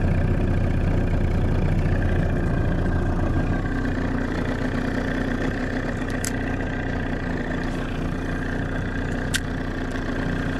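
Boat outboard motor running steadily at low speed. Its hum shifts slightly in pitch and level about three and a half seconds in, and two short clicks come near the middle and near the end.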